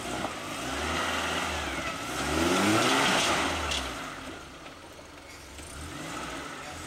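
Suzuki Samurai rock crawler's engine revving in bursts as it crawls over boulders, rising in pitch and loudest a little before the middle, then easing off. A single sharp click sounds a little past halfway.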